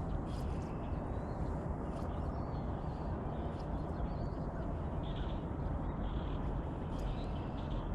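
Steady low outdoor rumble with faint bird calls over it; a few short calls come about a second apart in the second half.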